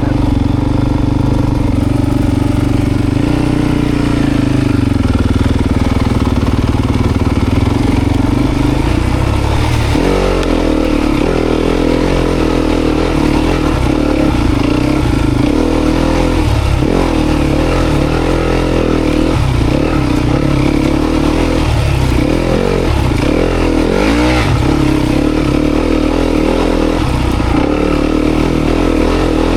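Dirt bike engine running under throttle while being ridden off-road, heard close up. Its note holds fairly steady, then changes about ten seconds in and dips and rises several times with the throttle.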